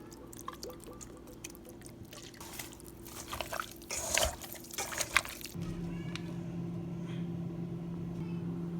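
Wet clicks, drips and short handling noises of food preparation, then a steady low hum that comes in a little past the middle.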